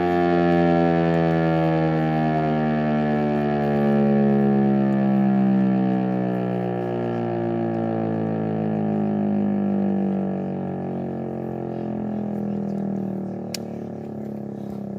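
Federal Signal Eclipse 8 outdoor warning siren winding down, its tone gliding slowly lower in pitch and fading. A single sharp click sounds near the end.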